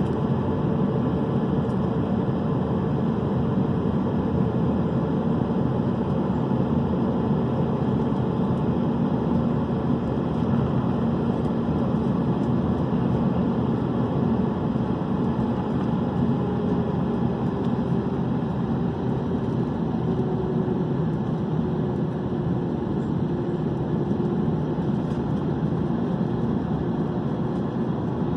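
Cabin noise inside an Airbus A321-211 on takeoff: a steady, loud rush of its CFM56 jet engines and airflow heard through the fuselage, with a faint whine drifting slowly lower in pitch in the second half.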